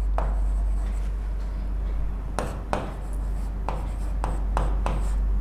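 Marker pen writing on a whiteboard. There is one faint stroke at the start, then from about halfway a run of roughly eight short strokes, all over a steady low hum.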